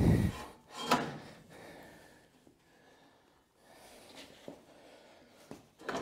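Metal clunks of a Kity 1619 table saw's steel crosscut carriage being handled and fitted back onto its rail. There is a short low rumble and a knock in the first second, then a few faint clicks.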